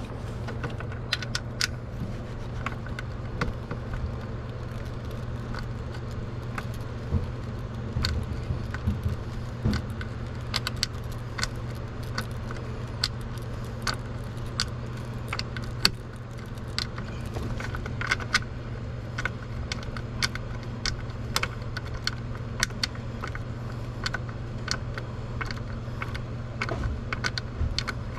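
Hand tools working on a hard-to-reach nut: irregular metallic clinks, taps and rattles of pliers and metal parts, over a steady low hum.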